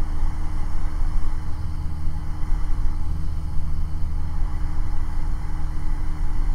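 Cessna 172's piston engine and propeller droning steadily in level cruise, heard from inside the cockpit.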